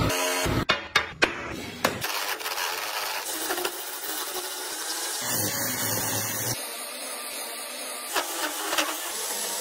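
A few sharp knocks, then the steady scraping hiss of a chisel cutting a spinning wooden blank on a lathe.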